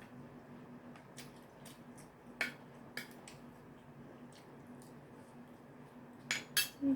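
Wet clicks and smacks of someone eating, a few scattered sharp ones with a small cluster near the end, over a faint steady hum.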